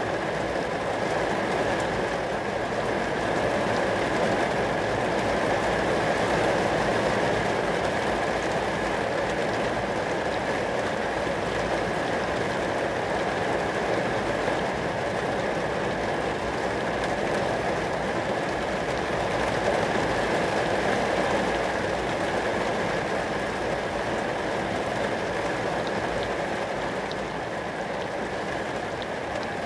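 Steady rain falling onto glass.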